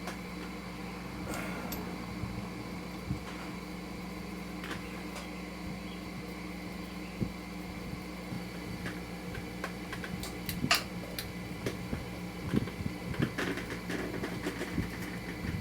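A steady machine hum, with scattered light clicks and clinks of small metal motorcycle parts and tools being handled. The clicks grow more frequent in the second half, the sharpest about ten and a half seconds in.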